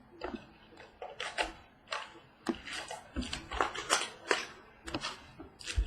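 Irregular clicks, taps and rustles from a trading-card mini box being opened and its cards handled: cardboard and card stock knocking and sliding.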